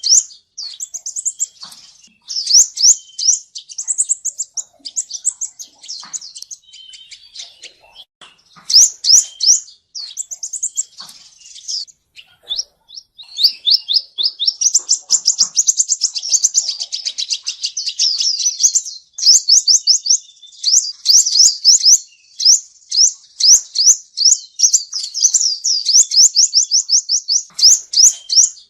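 Male sunbird (the 'seven-colour sunbird' of Vietnamese bird-keepers) singing: high, thin, rapid chips and twittering phrases, running into a long fast trill of repeated notes from about halfway through.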